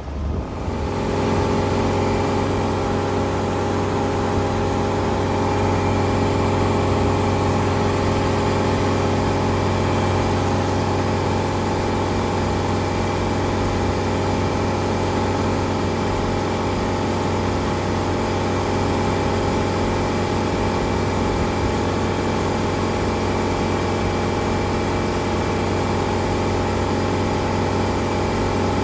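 Chrysler Crown M47S 265-cubic-inch flathead straight-six marine engine running steadily, heard close up at the open engine hatch.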